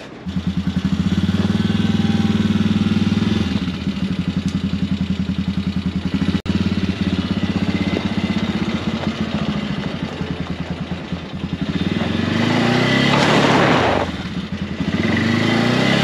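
Can-Am Outlander ATV engine running at a steady, throbbing idle close by, then revved up twice near the end, each rise bringing a loud rush of noise.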